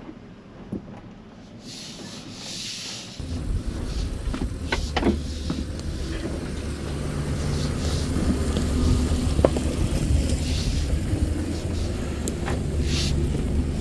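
2023 Nissan Frontier PRO-4X pickup moving slowly off-road: a steady low rumble of the truck that starts suddenly about three seconds in, with several sharp knocks over it.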